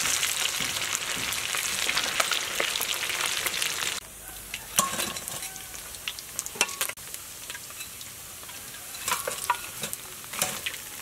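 Fish pieces deep-frying in hot oil, a dense sizzle that cuts off about four seconds in. After that come scattered light crackles and clinks as the fried fish drains in a metal strainer and a wire skimmer is worked against it.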